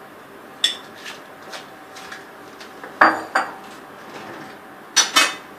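Metal cookware and utensils clinking and knocking: a handful of separate sharp clinks, the loudest about three seconds in and again near the end.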